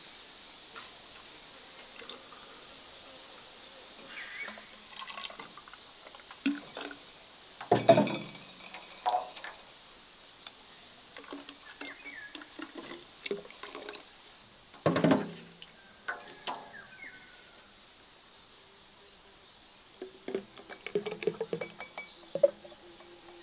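Liquid being poured with glass clinking and scattered knocks; the two loudest knocks come about eight and fifteen seconds in, and a quick run of small clatters comes near the end.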